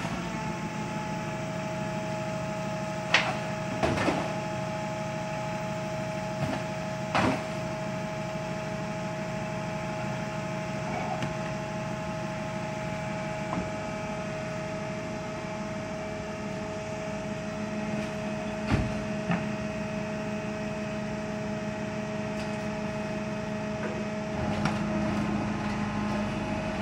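Garbage compactor truck running with a steady mechanical hum and whine, broken by a few short sharp knocks and clatters, about three, four and seven seconds in and again near nineteen seconds.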